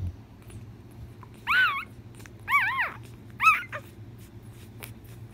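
Newborn boxer puppy whimpering three times while nursing: short, high-pitched squeaky cries that waver up and down in pitch, about a second apart.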